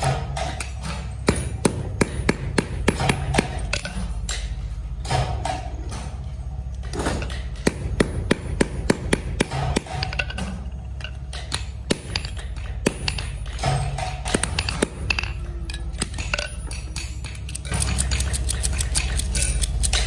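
Hand hammer striking a steel padlock body against a steel anvil block: runs of quick sharp metallic blows, about three a second, with short pauses between runs.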